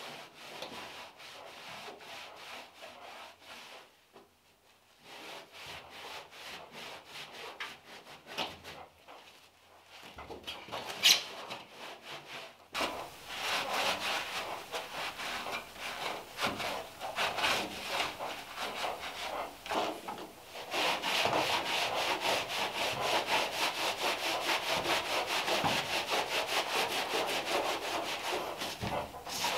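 A rag being rubbed hard over a car's bare metal floor pan in rapid back-and-forth scrubbing strokes. The rubbing is fainter at first and becomes much louder a little before halfway, and a single sharp click sounds just before that change.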